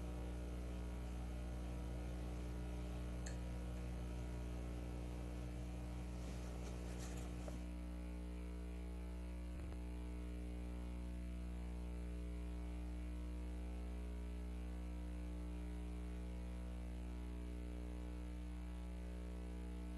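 Steady electrical mains hum: a low buzz with a stack of overtones, and a hiss over it that drops away about seven seconds in.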